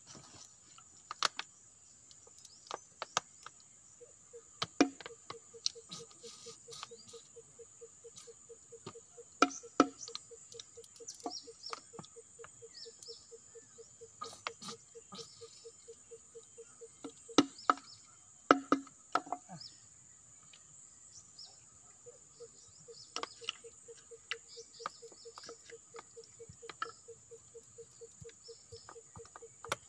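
Plastic bottle of gear oil being squeezed and shifted in the hand as it empties into an excavator's final drive: scattered sharp clicks and crackles of the plastic, loudest about ten and eighteen seconds in. Under them run a steady high hiss and a fast, even, pitched pulsing.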